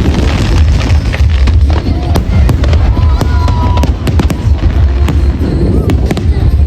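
Fireworks display: loud, repeated booms with sharp crackling bursts, over music.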